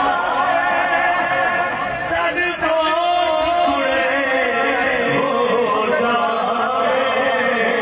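A man's voice reciting a naat, Urdu devotional poetry sung unaccompanied in long, held, melodic lines, amplified through a microphone.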